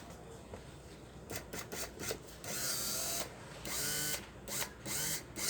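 Electric 220 V spice grinder's motor run in three short bursts, after a few clicks, with a weak sound. It does not grind properly: the motor is faulty.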